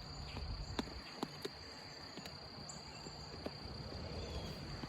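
Steady chirring of crickets on one high pitch, with a few sharp clicks about a second in.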